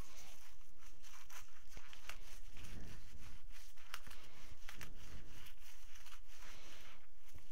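Light, irregular clicks and small rustles from hands handling craft items and tools on a table.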